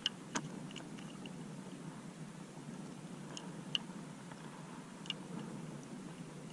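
A few short, sharp clicks and taps from hands handling a small, freshly landed reef fish and the pole rod as it is gripped for unhooking, over a low steady background noise.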